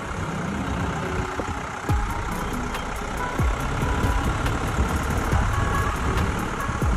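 A vehicle's engine and road noise heard from inside the cab while driving along a town street, with a few low thumps about two, three and a half and seven seconds in.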